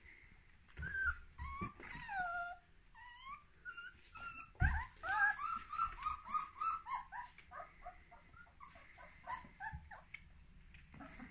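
Lupine dog puppies whining and squealing in high-pitched calls: a few drawn-out falling whines, then from about four seconds in a rapid run of short yelping squeals, several a second, that dies away near the end.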